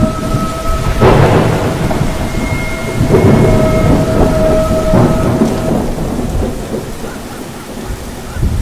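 Loud thunderstorm: rain and wind rushing, with rumbling thunder that swells about one, three and five seconds in. A steady humming tone runs under it and stops about six seconds in.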